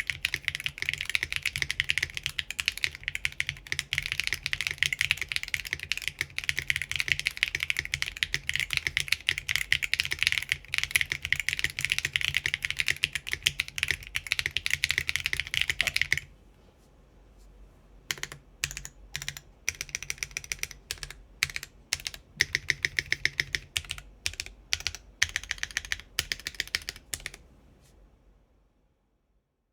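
Typing on a Typface Kafka mechanical keyboard with Geon RAW HE magnetic Hall-effect switches, aluminium plate in its plate-gasket mount, and ABS doubleshot keycaps: fast, continuous keystrokes. About halfway through the dense typing cuts off, and slower, sparser runs of keystrokes follow. These fade out near the end.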